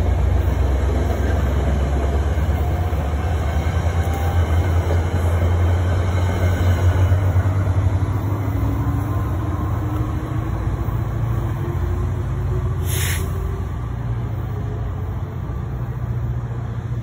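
NJ Transit PL42AC diesel-electric locomotive moving a passenger train away under power: a deep, steady diesel drone with a faint whine that rises slowly in pitch as it gains speed. A short hiss of air comes about thirteen seconds in.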